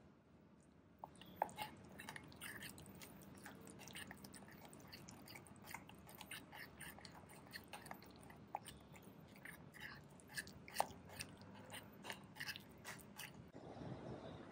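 Metal spoon stirring a thick, wet curry-powder paste in a ceramic bowl: quiet squelching with irregular small clicks of the spoon against the bowl, several a second.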